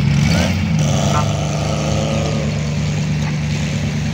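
Off-road vehicle engine running at a steady low pitch close by, with a second engine sound rising over it for a second or two about a second in.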